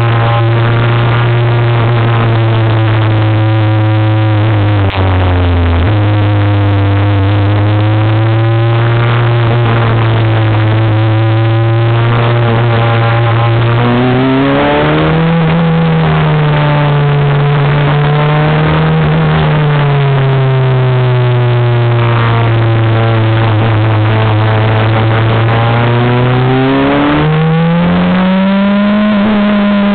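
Super FJ racing car's 1.5-litre Honda four-cylinder engine heard from the cockpit at racing speed, its note rising and falling with throttle and gear changes. There is a sharp dip in pitch about five seconds in, and steep climbs around the middle and near the end.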